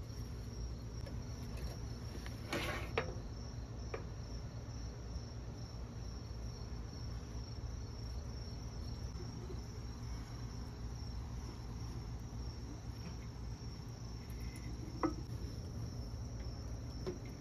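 Crickets chirring in one steady high tone over a low steady rumble, with a few light knocks about two and a half seconds in and again near the end.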